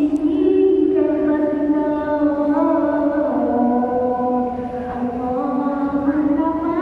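A girl's solo voice singing a slow, chant-like melody in long held notes that now and then bend in pitch.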